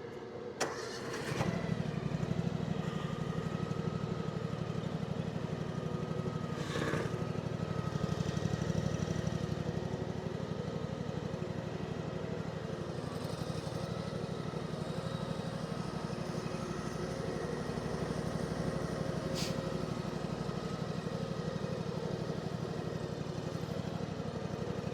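Small engine of a shed mule starting about a second in, then running at a steady speed with an even, rapid pulse.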